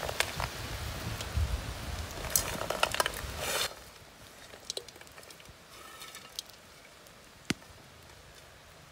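Fried chicken pieces dropped by hand from a steel plate into a wok of noodles: light irregular clatter and knocks for about the first four seconds. Then it goes quiet, with a few scattered clicks.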